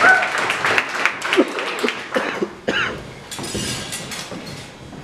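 Audience applause with scattered voices, dying away over the first three seconds.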